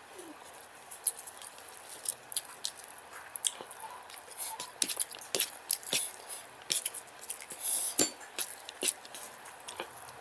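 Close-up eating sounds: fingers squishing and mixing rice with curry on a plate, then mouth sounds of chewing and lip smacks, heard as a scatter of short wet clicks that grows busier about halfway through.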